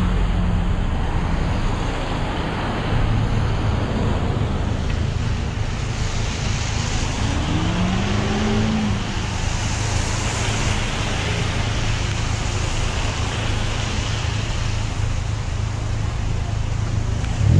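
Road traffic on a rain-soaked street: cars idling and moving close by, with tyres hissing on the wet pavement. One engine note rises briefly about halfway through.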